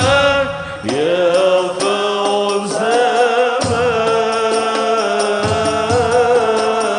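A man's high voice singing an Arabic sholawat in long, wavering melismatic notes over musical accompaniment, with a steady light percussion beat.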